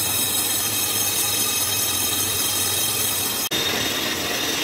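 Steady mechanical noise of workshop machinery running, with a low hum underneath. It drops out for an instant about three and a half seconds in, then carries on much the same.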